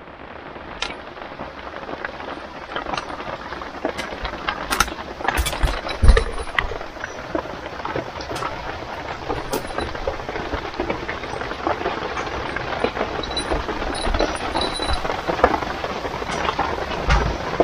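Steady drizzling rain, with scattered sharp drips landing close by and a few low thumps, the loudest about six seconds in.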